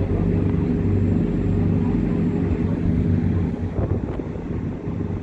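A car ferry's engines running underway: a steady low drone with a constant hum.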